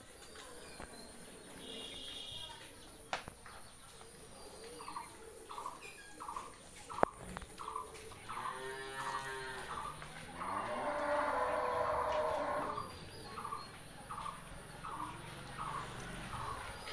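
A dairy cow mooing: one long call starting about eight seconds in and growing loudest a couple of seconds later. A steady run of short, evenly spaced chirps, about three a second, sounds behind it.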